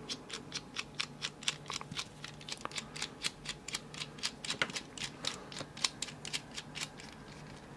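Small screwdriver turning in a screw at the bottom of a brass padlock body, making a fast run of light, even clicks, about four a second, that stops near the end.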